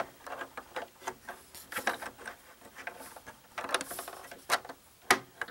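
Plastic LEGO pieces clicking and knocking irregularly as the model is handled, with one sharper click about five seconds in.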